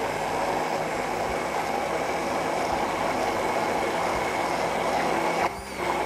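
Hand-held immersion blender running steadily, its blade pureeing roasted eggplant and olive oil into a cream in a tall plastic beaker. The motor dips briefly about five and a half seconds in, then runs on.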